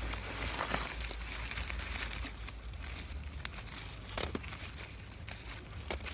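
Apple-tree leaves and twigs rustling as apples are picked by hand off a leafy branch, with a few sharp clicks spread through the rustling.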